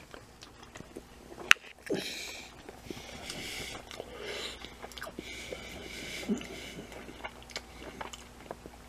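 Close-up chewing and mouth noises of a person eating a forkful of rice and plant-based pork, with breathing through the nose between bites. A single sharp click about one and a half seconds in.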